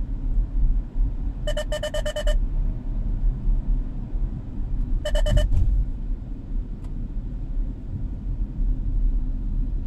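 Vehicle height-limit warning unit giving two quick runs of rapid electronic beeps, the first about a second and a half in and a shorter one just past halfway, over the steady low road and engine rumble inside the car's cabin.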